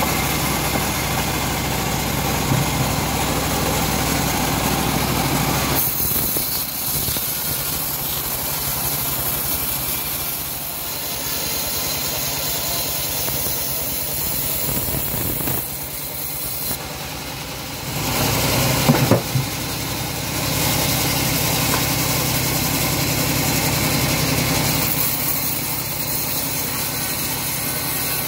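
A homemade bandsaw mill running steadily. Its blade cuts lengthwise through a teak log, and the sound changes each time the wood is fed in. A couple of sharp, loud knocks come a little over halfway through.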